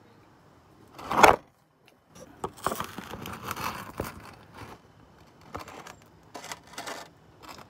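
Handling noise from a phone being gripped and repositioned: fingers rubbing and scraping over its microphone. The loudest is a rub about a second in, and scattered scrapes and crackles follow.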